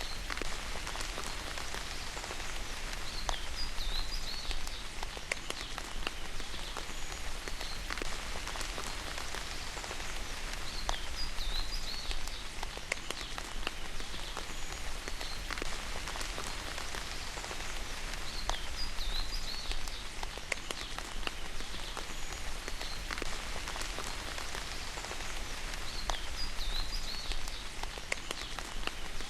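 Steady rain falling, an even hiss full of small drop ticks. Short high chirps cut through it about every eight seconds.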